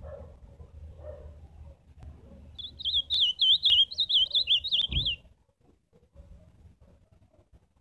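Ultramarine grosbeak (azulão) singing one short, fast phrase of rapid up-and-down whistled notes lasting about two and a half seconds, starting a little over two seconds in.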